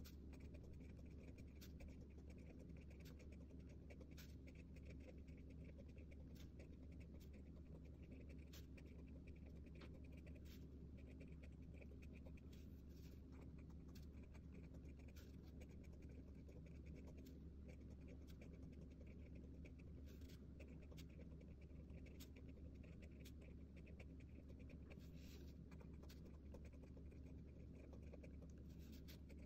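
Faint scratching of a Pigma Micron fine-liner pen tip writing on ruled notebook paper, with small irregular ticks as strokes start and lift, over a steady low hum.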